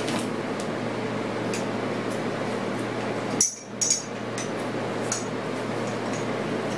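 A few sharp metallic clinks of tools and parts handled on a workbench over steady background noise. The loudest clink comes about three and a half seconds in, with two lighter ones soon after.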